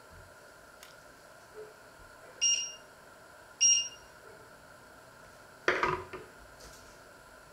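Two short, high electronic beeps about a second apart, then a kitchen knife set down with a clatter on a wooden cutting board.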